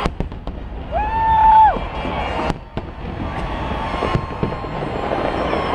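Fireworks going off: several sharp cracks and bangs over a steady background of crowd noise. About a second in comes a held high-pitched tone lasting under a second, the loudest sound here.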